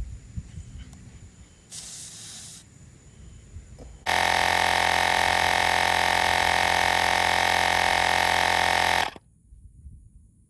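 A short hiss about two seconds in, then a battery-powered portable tire inflator's compressor runs loud and steady for about five seconds and cuts off suddenly.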